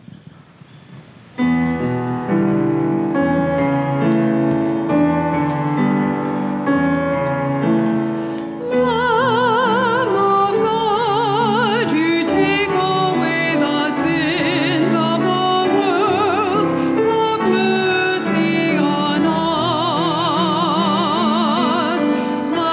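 Church music: a keyboard comes in with sustained chords about a second and a half in, and about nine seconds in a solo singer with a wide vibrato joins, singing over the accompaniment.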